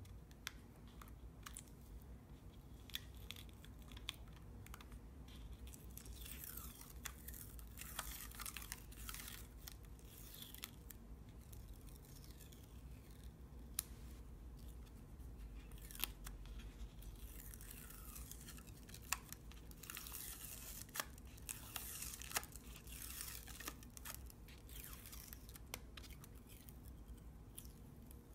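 Dried masking fluid being rubbed up and peeled off watercolour paper with the fingertips: faint, close peeling of the rubbery film in repeated strokes, with scattered small ticks.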